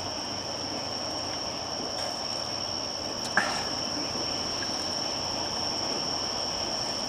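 Crickets chirring steadily in a high, unbroken tone, with one brief sharp sound about three and a half seconds in.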